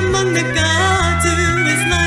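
A woman singing a slow worship song, her voice sliding between notes over instrumental accompaniment with steady held bass notes.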